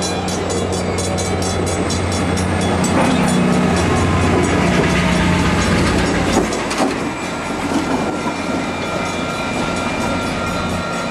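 Coaster commuter train passing close by: the bilevel cars' wheels click steadily over the rail joints while the diesel locomotive's engine runs with a steady low hum.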